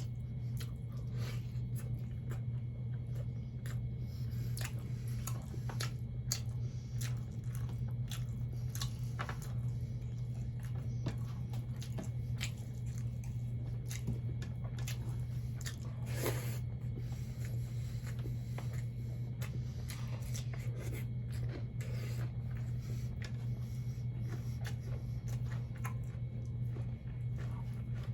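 Close-up eating sounds of a person chewing fried catfish and rice: many small wet mouth clicks and smacks, with a steady low hum underneath.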